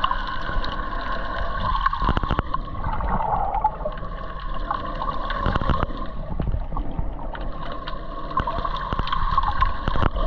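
Water sloshing and gurgling around the camera, with scattered short clicks and a low rumble throughout.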